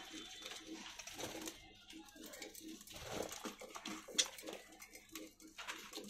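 Budgerigars chirping and chattering in an aviary, with a sharp click a little after four seconds.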